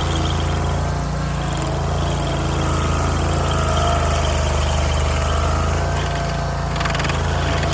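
Barreto SG3630 stump grinder's gasoline engine running loud and steady, easing off slightly about a second in and again near the end.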